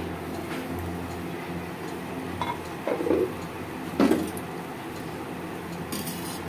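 Terracotta lid lifted off a clay pan and set down, giving a few knocks and clinks of clay on clay a few seconds in, the loudest about four seconds in. Near the end a spatula starts scraping against the clay pan to free the rice pancake, over a steady low hum.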